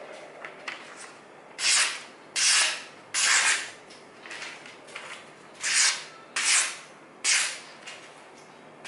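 Sharpened scissors test-cutting a sheet of newspaper: six loud, rasping cuts of about half a second each, with fainter paper rustles between them.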